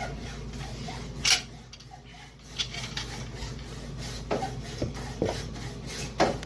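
Hard knocks, clicks and rubbing from PVC pipe fittings being wrestled apart by hand: about six sharp knocks, the loudest about a second in, over a steady low hum.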